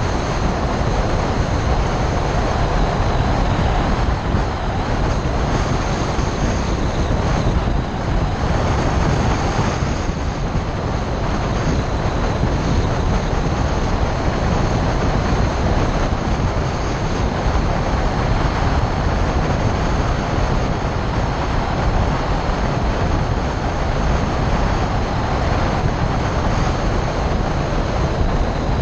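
Steady rush of a car driving at road speed, heard through a camera mounted outside on the hood: wind buffeting the microphone with a deep rumble, mixed with tyre and road noise.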